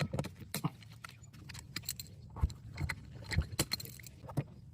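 Irregular light metallic clicks, clinks and knocks of small metal parts and tools being handled: rivets and a sheet-metal backing plate being positioned for a rust-hole patch on a car door.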